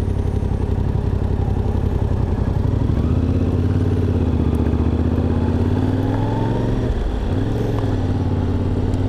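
Yamaha Ténéré 700's parallel-twin engine pulling away and accelerating at low road speed. Its note firms up about three seconds in, rises a little, and breaks briefly about seven seconds in, as at a gear change, before pulling on.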